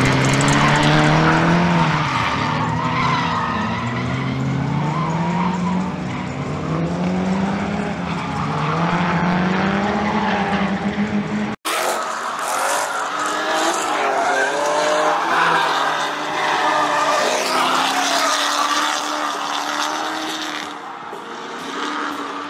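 Drift cars sliding in tandem, engines revving up and down with tyres squealing and skidding. A sudden brief cut a little past halfway, after which the engines sound thinner, with less bass.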